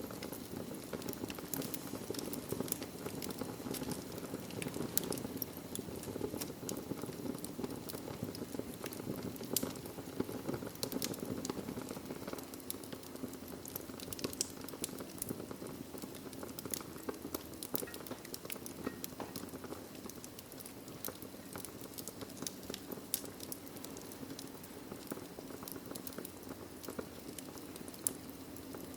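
Wood fire burning in a fireplace: a steady low rush of flame with frequent sharp crackles and pops at irregular intervals, one louder pop near the end.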